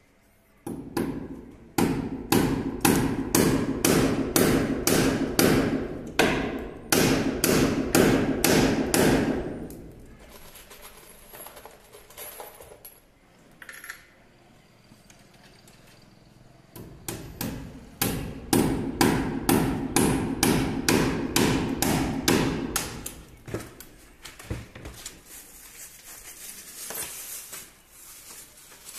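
Hammer driving a nail into the wall to fix a PVC electrical conduit pipe in place. Two runs of quick, even blows, about two or three a second: the first lasts roughly nine seconds, the second starts just past halfway. Fainter knocks and handling near the end.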